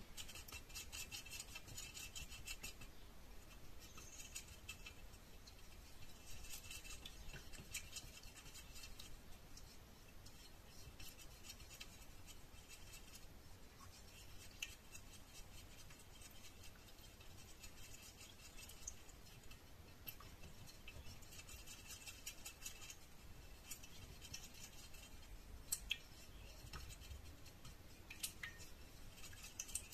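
Stirring stick scraping and ticking against the inside of a stainless steel bowl while melted candle wax is stirred. Faint, and it comes in spells with short pauses.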